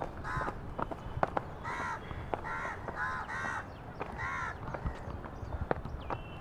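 A crow cawing about five times in quick succession, harsh repeated caws, over the clicks of footsteps walking along a path.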